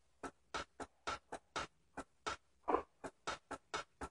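Window blind slats clicking and clattering as a cat paws them back and forth: short, sharp clicks in an uneven run of about three or four a second, with one longer, louder rattle about two-thirds of the way through.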